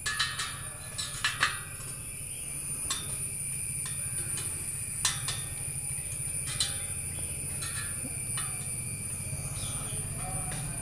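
Sharp metallic clicks and clinks, about a dozen at irregular intervals, from a spoke wrench turning the spoke nipples of a bicycle wheel as the spokes are tightened, over a steady low hum.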